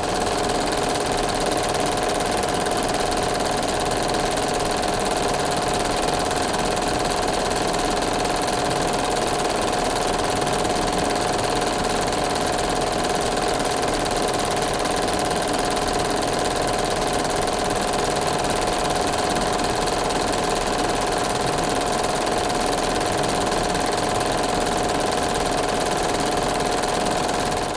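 Film projector running: a steady mechanical whirring clatter with a constant hum-like tone over it.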